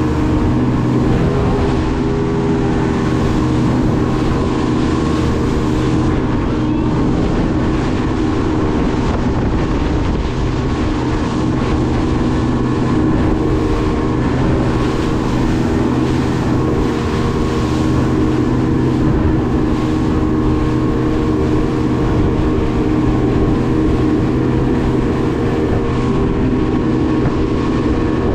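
Speedboat engine running steadily at cruising speed from on board, with spray and rushing water along the hull mixed in. The engine drone holds an even pitch and level throughout.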